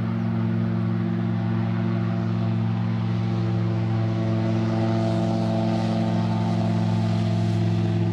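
Engine of a low-flying light aircraft, a powered hang glider as the onlookers take it, droning steadily at one pitch and growing slightly louder towards the end.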